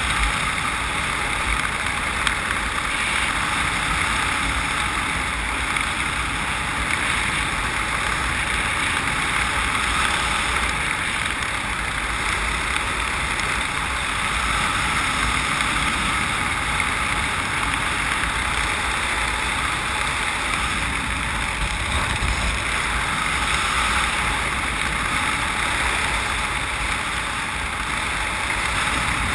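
Steady wind rushing over a skydiver's camera microphone during a descent under an open parachute, an even hiss with no breaks.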